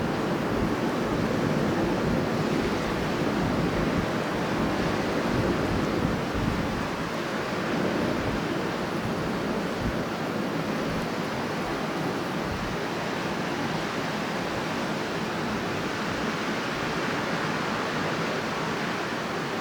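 Strong wind blowing as a steady rushing noise, easing slightly about six seconds in.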